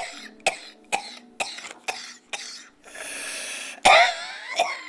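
A person's hacking smoker's cough: a run of short sharp coughs about two a second, a drawn-out breathy stretch, then the loudest cough of the fit just before four seconds in.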